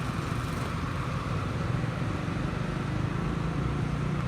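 Steady low rumble of motor engines, from vehicles and road works, with no sudden events.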